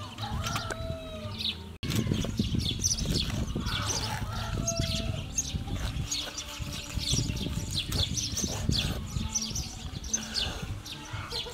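Cleaver cutting through a rack of raw pork ribs on a wooden chopping block: a dense run of dull knocks from about two seconds in, with small birds chirping throughout.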